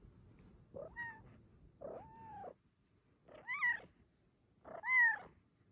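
Bengal cat meowing four times, about a second and a half apart; each short call rises and falls in pitch.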